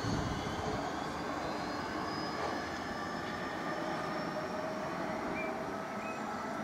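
Class 465 Networker electric multiple unit accelerating away, its traction motors giving a whine that slowly rises in pitch over the hum of the train.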